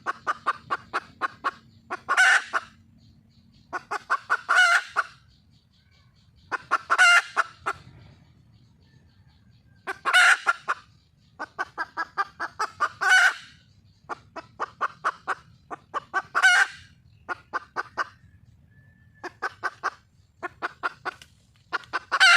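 Wild junglefowl hen cackling for a male: runs of short clucks at about three a second, each run rising into a louder, drawn-out note, repeated every two to three seconds.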